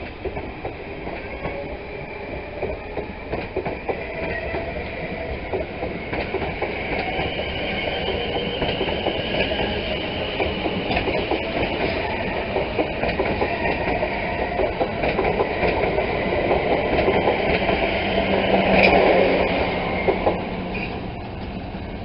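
South West Trains Class 444 Desiro electric multiple unit running past close by, its wheels clattering over the rail joints under a steady whine. The sound builds to its loudest about 19 seconds in, then eases.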